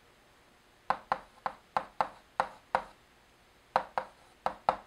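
Chalk tapping against a blackboard while writing numbers and fractions: a run of about eight short, sharp taps starting about a second in, a brief pause, then four more near the end.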